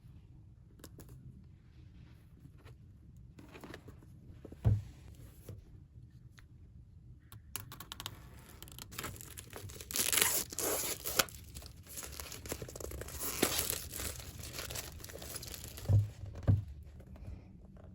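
Packaging being torn open and crinkled while a box is unpacked, in a stretch of rustling and tearing through the middle, with a dull thump early on and two more near the end.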